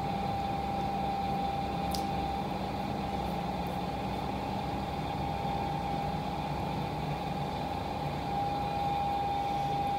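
Steady room background hum: a low drone with a constant high whine on top, unchanging throughout, and one faint click about two seconds in.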